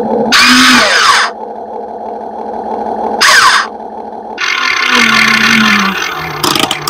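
Excavator machinery whirring in three bursts, about a second in, around three seconds in and for about two seconds near the end, over a steady hum.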